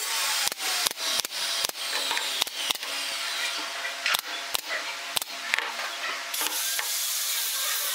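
Pneumatic brad nailer firing a quick irregular series of sharp shots, about a dozen, as nails are driven into the joints of a pine frame. The shots stop about six seconds in.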